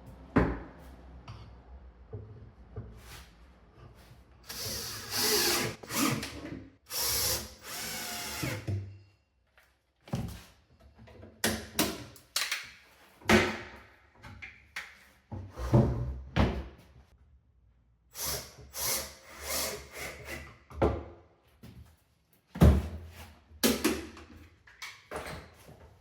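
Power drill driving screws into wood cabinet parts in a series of short runs, the longest a few seconds each, with a sharp knock about three quarters of the way through.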